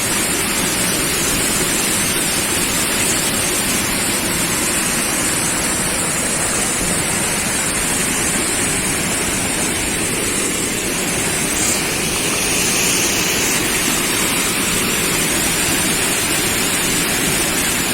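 Steady rush of falling water from the spring's cascades, a loud, even noise with no pauses.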